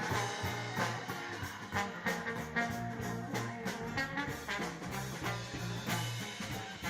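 Live band playing an instrumental stretch: drums keeping a steady beat under sustained bass notes and guitar.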